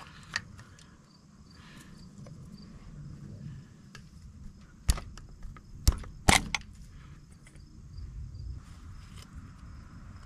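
Distributor cap on a 1947 Case VAC tractor's engine being pried off with a screwdriver: a few sharp clicks as the cap's spring clips snap loose, the three loudest close together about halfway through.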